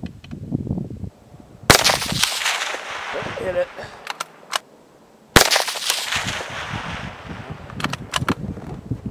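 Two rifle shots about three and a half seconds apart, each trailing off in a long echo, with a few short sharp clicks between and after them.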